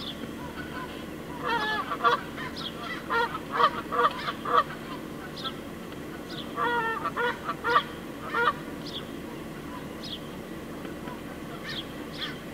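Geese honking in three bouts of repeated calls over the first two-thirds, with short high bird chirps scattered throughout and a steady low hum underneath.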